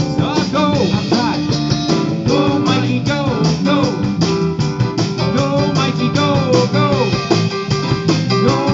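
Live band playing: electric guitar lead with bending notes over a drum kit, bass guitar and electric keyboard, with no words sung.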